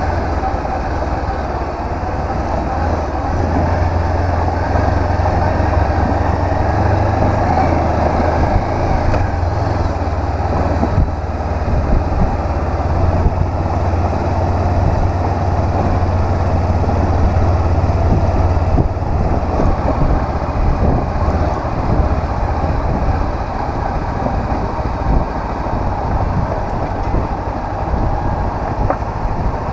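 Honda CB500X's parallel-twin engine running steadily under way, over continuous wind and road noise; the low engine drone eases off about two-thirds of the way through.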